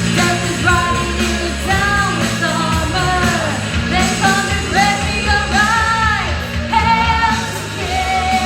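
A voice singing a melody line over a loud hard rock song.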